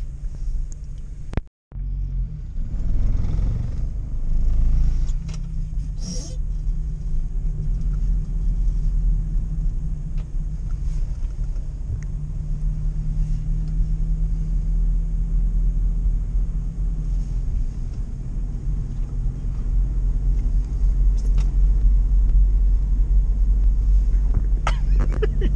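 UAZ 452 van's engine and drivetrain running at road speed, heard inside the cab as a steady low drone with scattered rattles and clicks. The sound cuts out briefly about a second and a half in, and the drone grows louder over the last few seconds.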